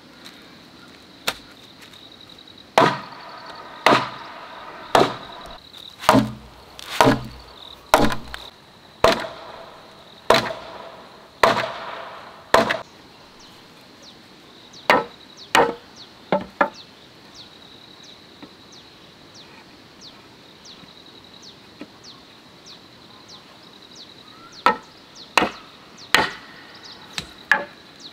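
Heavy hammer blows knocking timber pieces of a wooden frame into place: about ten strikes at roughly one a second, then a quick group of three or four, and a final few near the end. A steady high insect drone runs underneath.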